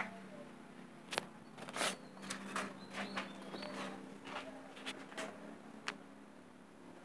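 Handling noise: a run of sharp clicks and short rustles, strongest between about one and six seconds in, over a steady low hum.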